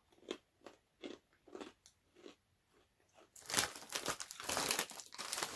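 Crunchy seasoned pretzel pieces being bitten and chewed close to the microphone: a few faint separate crunches, about two or three a second, then louder, denser chewing from about three and a half seconds in.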